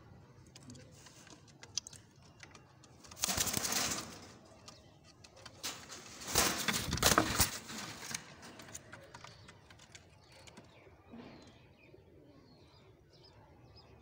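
Dobaz pigeons flapping their wings in two flurries, a short one about three seconds in and a longer one around six to eight seconds in.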